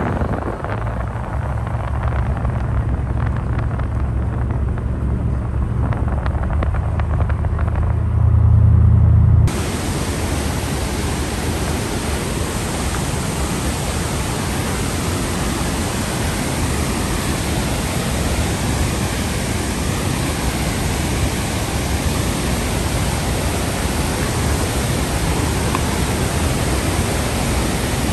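Low road rumble of a car driving, heard from inside the car. About nine seconds in, an abrupt cut to the steady rush of a whitewater creek cascading over boulders, an even hiss.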